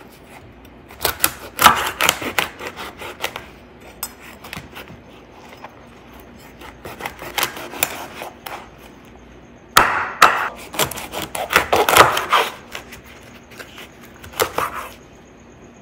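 Hard dried salted tilapia (koobi) being cut into pieces: groups of sharp cutting strokes with short pauses between.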